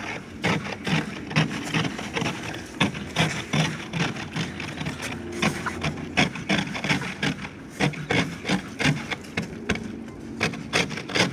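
Footsteps and scuffing crunching in crusty snow, a steady run of short, irregular crunches.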